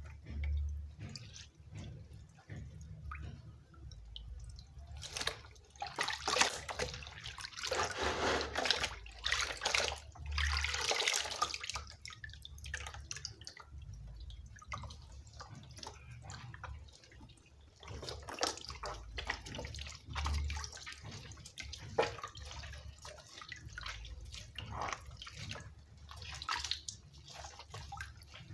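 Tripe being washed by hand in a plastic basin of water: sloshing and splashing, with water streaming and dripping back into the basin as the tripe is lifted and squeezed. The splashing is loudest from about five to twelve seconds in.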